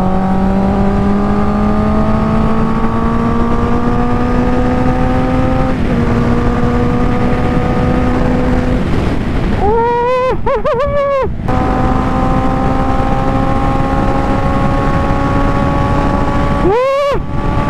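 Honda CBR650's inline-four engine pulling hard at highway speed, its note climbing steadily as the bike accelerates, with a small step about six seconds in. Twice, about ten seconds in and near the end, the note briefly swoops up and down in pitch. Wind rush on the microphone runs underneath.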